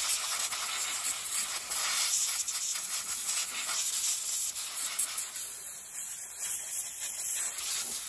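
Compressed-air blow gun blasting air over a grimy small-engine carburetor to blow the dirt off, a loud continuous hiss that swells and eases as the nozzle is moved around.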